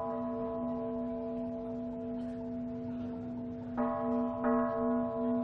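A deep bell tone ringing on with a slow throb, then struck again twice in quick succession near the end.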